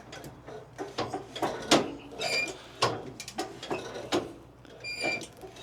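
Safety switches on a zero-turn mower being worked by hand: a string of irregular metallic clicks and clanks, a few ringing briefly.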